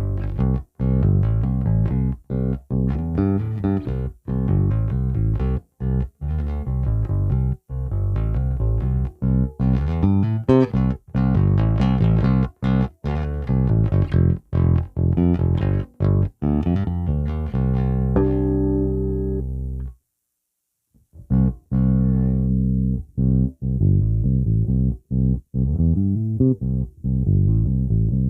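Fender Player Series Precision Bass played through a Marshall MB60 bass amp: a fast run of plucked notes, then a held note that stops dead about two-thirds of the way in. After about a second of silence the playing starts again.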